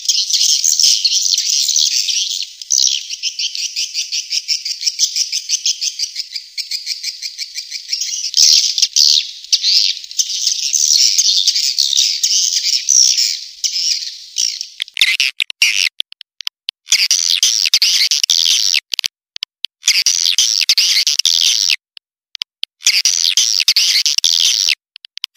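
Swiftlets calling: a dense stream of rapid, high-pitched chirping trills, continuous at first, then broken into bursts with abrupt short silences from about fifteen seconds in. It is a swiftlet 'panggil' call recording, the kind played to lure swiftlets into nesting houses.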